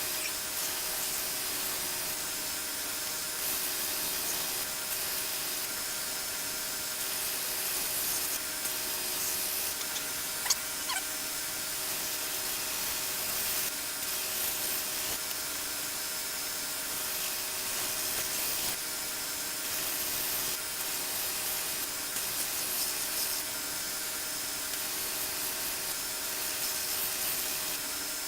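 1x42 belt sander running with an 80-grit belt, grinding the side of a steel cleaver: a steady hiss of abrasive on metal over the motor's hum, swelling and easing slightly as the blade is pressed on. One sharp click about ten seconds in.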